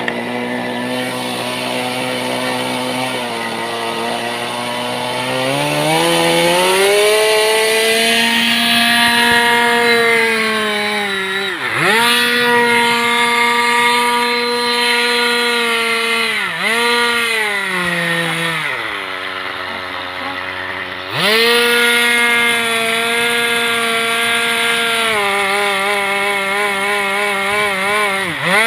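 Small fuel-burning model-airplane engine of a wooden F3R pylon-racer running at high speed with a buzzing, high-pitched note. Its pitch climbs a few seconds in, dips sharply and briefly several times, drops lower and quieter for a couple of seconds past the middle, then picks back up.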